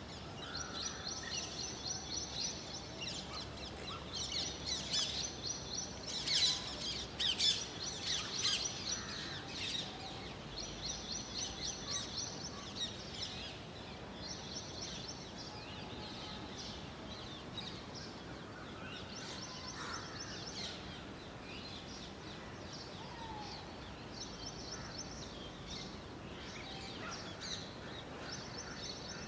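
Small songbirds chirping: a short high trilled phrase repeated every few seconds, with a louder cluster of sharp chirps about six to nine seconds in, over a faint steady outdoor hiss.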